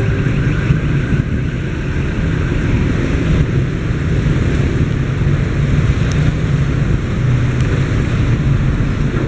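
Vehicles passing by with a loud, steady low rumble.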